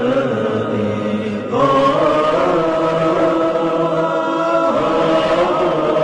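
Voices of an Arabic nasheed holding long sustained notes, like a chant. They move to new notes about a second and a half in and again near five seconds.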